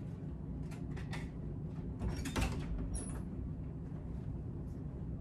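Hotel room door being opened: a couple of light clicks, then the lever handle and latch clunk about two seconds in, over a steady low room hum.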